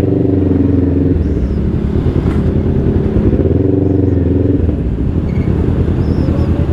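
Motorcycle engine running at low speed through slow street traffic, its low pulsing note growing stronger twice, near the start and again about four seconds in.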